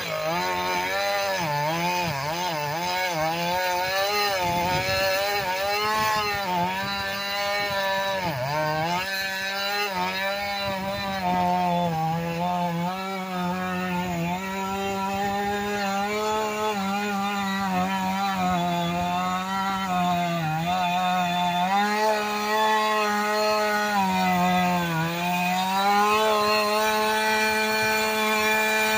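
Husqvarna 450 X-Torq two-stroke chainsaw held at full throttle while cutting through a log. Its engine pitch sags briefly several times as the chain bites and loads it, then recovers.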